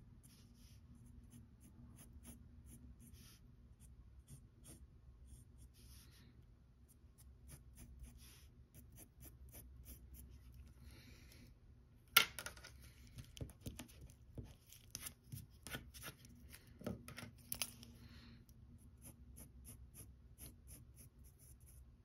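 Graphite pencil scratching on paper in many short strokes. About halfway through there is a sharp tap, and after it the strokes come thicker and louder for several seconds before easing off again.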